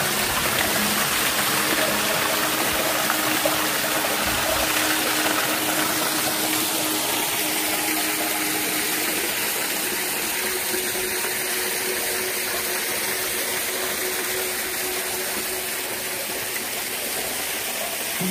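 Water pouring from a bamboo pipe into a stone pool, a steady splashing rush that grows somewhat fainter in the second half.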